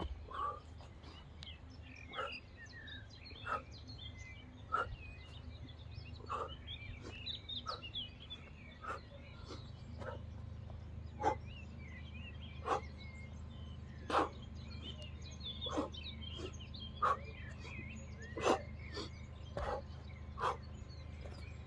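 A person's short, forceful grunting exhalations, about one every second and a half, as with each repetition of a bodyweight exercise. Faint bird chirps and a low steady hum sit underneath.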